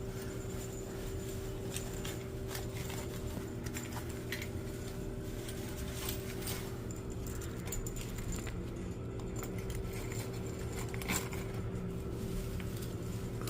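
Steady low hum of boiler-room machinery, with scattered light clicks and taps of small parts and tools being handled, one sharper tick near the end.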